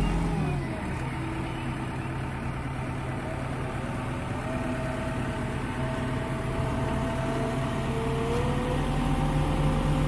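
Concrete mixer truck's diesel engine running steadily, with a whine that rises a little in pitch about halfway through and again near the end.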